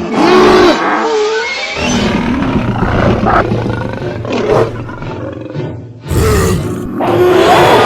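Layered animal roar sound effects, several overlapping roars rising and falling in pitch, over music. A dip about six seconds in is followed by a sudden loud new burst of roaring.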